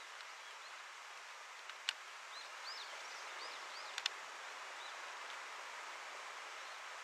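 Faint, steady outdoor background hiss. A run of short, high chirps comes a little over two seconds in, and sharp clicks come near two and four seconds in, the clicks being the loudest sounds.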